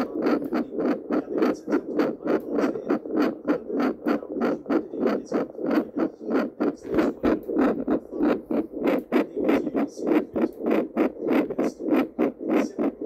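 Handheld fetal Doppler monitor playing a heartbeat through its speaker: a steady train of rhythmic whooshing pulses, a few each second.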